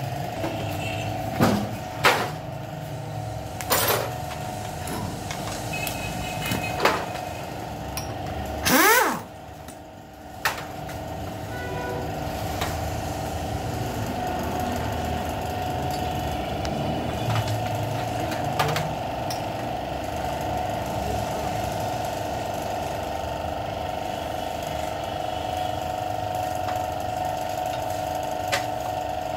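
Metal hand tools knocking and clinking on a Suzuki Every engine as it is dismantled, a few sharp knocks in the first seven seconds and one loud, brief burst with a falling pitch about nine seconds in, over a steady workshop hum.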